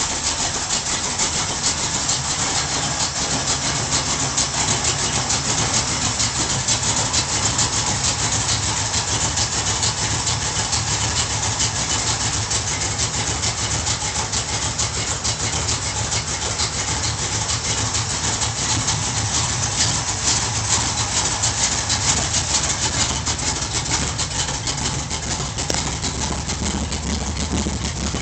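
Ford Gran Torino's 351 Cleveland V8 idling steadily and evenly, running smoothly after a full tune-up with a gone-through carburettor and an upgraded ignition.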